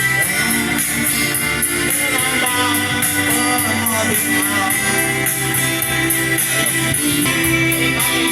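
Recorded song with guitar accompaniment, a steady beat and a gliding melody line.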